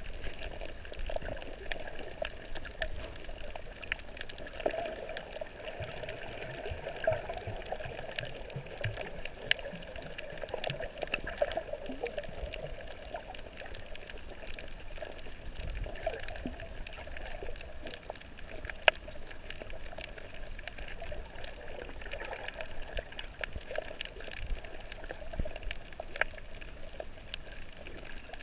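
Underwater sound picked up by a camera moving over a coral reef: a steady muffled water rush peppered with short sharp clicks and crackles, one much louder click about two-thirds of the way through.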